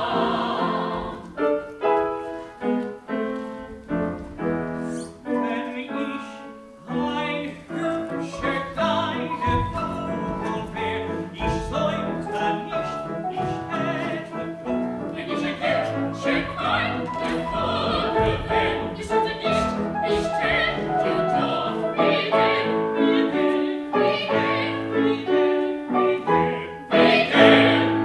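Operatic singing with piano accompaniment, swelling to its loudest passage near the end.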